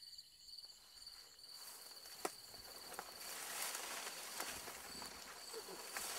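Night insects, crickets among them, trilling in steady pulsing high tones. From about a second and a half in, louder rustling of foliage sets in with a few sharp snaps, like footsteps pushing through undergrowth.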